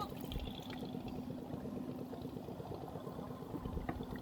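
Water pouring and trickling, over a steady low hum.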